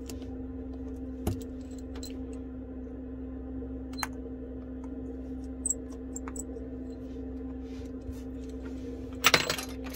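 Scattered light clicks and taps of a precision screwdriver and the iPhone 11's tiny pentalobe bottom screws being handled, over a steady low hum. A louder burst of clatter comes about nine seconds in.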